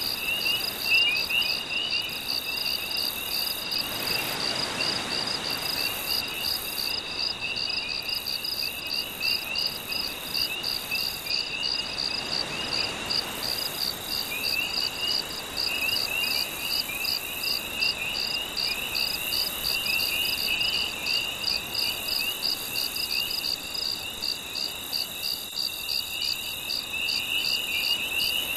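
Nighttime chorus of crickets and other insects: a steady high trill pulsing a few times a second, with a lower wavering chirping on top. Gentle waves wash faintly underneath, swelling a little twice.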